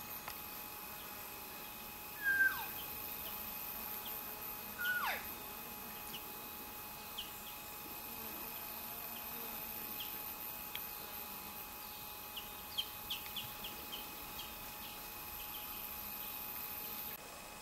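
Sika deer calling twice, about three seconds apart: each call is a short high whistle that drops steeply in pitch. Scattered faint ticks follow.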